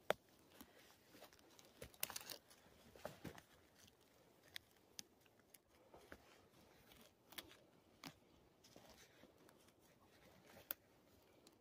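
Faint, irregular crunches and rustles of footsteps walking through fresh snow and dry grass, with a few sharper crackles.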